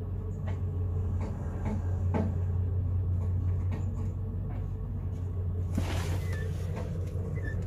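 Steady low drone of an idling truck engine, heard from inside the cab, with scattered knocks and clunks and a brief scraping rattle about six seconds in.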